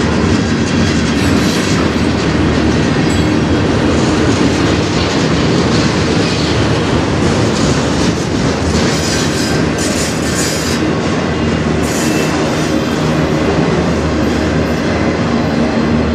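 Freight cars of a passing manifest train, covered hoppers and autorack cars, rolling by in a loud, steady rumble and rattle of steel wheels on rail. A few short high-pitched flares of wheel noise come a little past the middle.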